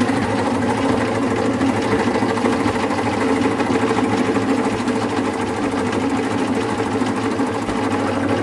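Hydraulic press running with a steady mechanical hum as its ram lowers slowly.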